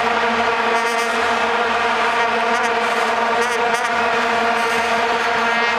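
Massed vuvuzelas blown by a stadium crowd: one continuous drone on a single held note with its overtones, running steadily with no rise or fall.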